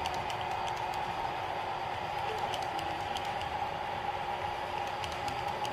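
Athearn HO-scale model tank cars rolling past on the layout track, their small metal wheels clicking irregularly over rail joints over a steady hum.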